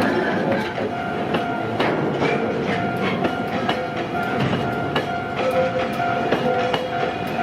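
Freight train passing a level crossing, its wheels clattering over the rail joints, while the crossing's electric bell keeps up a steady ringing tone.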